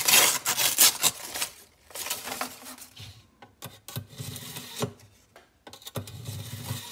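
A kitchen knife slicing through a sheet of paper with a crisp rustle for about the first second and a half. Then the steel blade is drawn through the slot of a 3-stage manual knife sharpener a few times, a rasping scrape with each pull, the pulls about two seconds apart.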